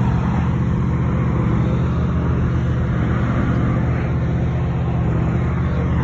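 Heavy engine of a slow-moving engineering works train running steadily, a deep, even drone.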